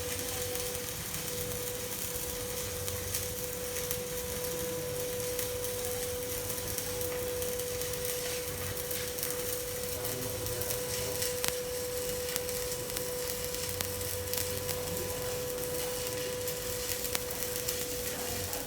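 Electric arc welding: the arc's steady crackling hiss, with a constant hum running underneath.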